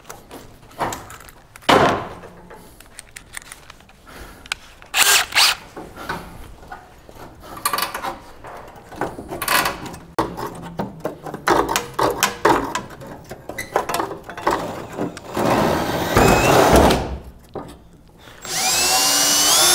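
Hand tools prying and twisting leftover scraps of spot-welded sheet metal off a 1962 Chevrolet pickup's roof drip rail, making a scattered series of metal clicks, snaps and scrapes. Near the end a corded electric drill spins up with a rising whine and then runs steadily, drilling out a spot weld.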